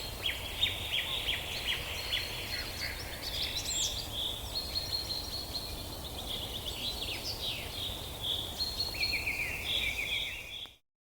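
Many birds chirping and trilling together over a steady low background rumble, cutting off suddenly near the end.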